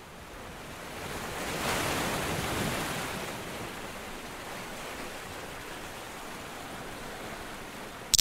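A rushing noise with no tone in it swells over about two seconds, then eases off and holds steady. It sounds like surf and is a sound effect under an animated outro card.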